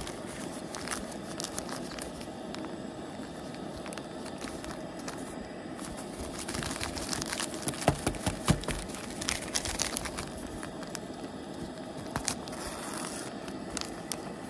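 Paper hot cocoa mix packet being handled, crinkled and torn open, with sharp crackles loudest about halfway through. Underneath is the steady rushing hiss of a lit propane camp stove burner.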